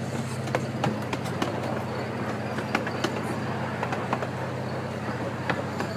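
Miniature ride-on park train running along its track: a steady low hum with sharp, irregular clicks and clacks from the cars rolling over the rails.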